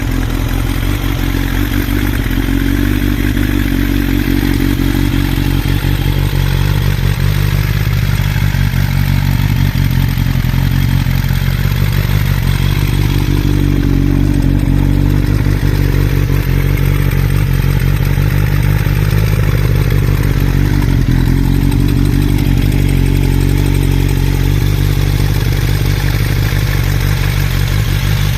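Suzuki GSX750S Katana with a GSX-R1100 inline-four engine running steadily.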